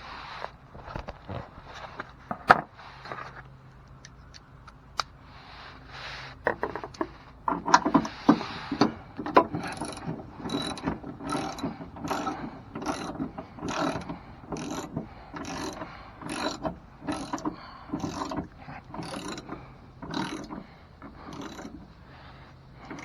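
Hand ratchet wrench clicking as it is worked back and forth on the mounting bolts. Scattered clicks and knocks come first; about ten seconds in it settles into regular strokes, roughly three every two seconds.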